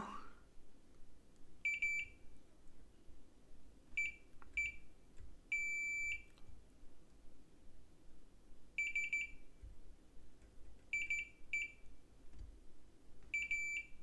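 Multimeter continuity beeper giving about nine short high beeps, some in quick pairs and one held for over half a second, as the probe touches the pads of small filters on a circuit board. Each beep marks a pad tied to ground, not a short.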